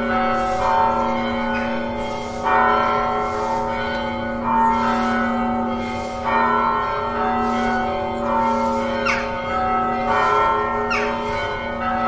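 Church bells ringing: several bells struck in turn, a new strike every second or two, each ringing on and overlapping the next.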